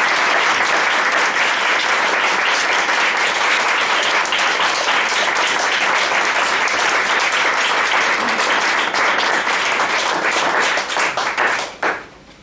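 Conference audience applauding, a loud, even clatter of many hands clapping that fades away near the end.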